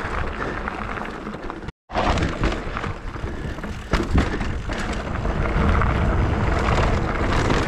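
Mountain bike riding fast down a dirt trail: tyres rolling over rough ground, with repeated knocks and rattles from the bike and heavy wind noise on the microphone. The sound cuts out completely for a moment about two seconds in.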